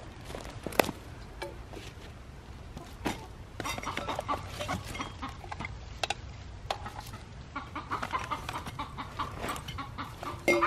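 Backyard hens clucking and squawking, stirred up by a kitten among them, in two spells: about four seconds in and again near the end. A few sharp knocks come in between.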